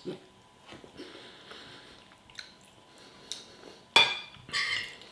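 Cutlery knocking and scraping on a plate while eating, with a few light clinks and one sharp clink about four seconds in, followed by a short scrape.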